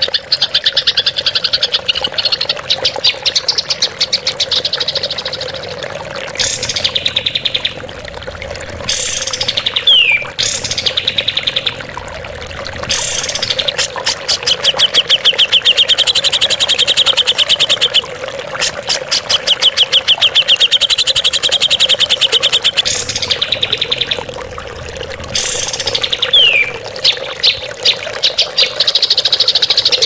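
Recorded songbird calls used as training song for cage birds: fast, harsh rattling trills, some held for several seconds, repeated with short gaps, and a quick falling whistle twice. A steady low drone runs underneath.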